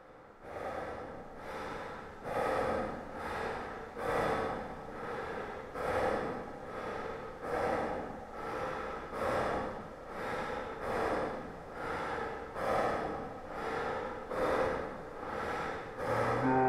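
A man breathing heavily and rhythmically close to the microphone, a little more than one snorting breath a second, on and on.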